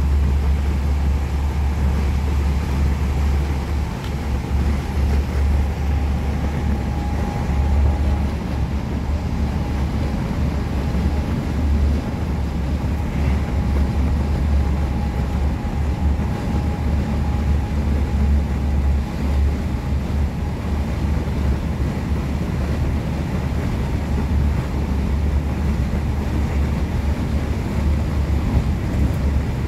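Running noise inside a V2N double-deck passenger coach on the move: a steady deep rumble with a hiss over it, and a faint high tone for several seconds in the first half.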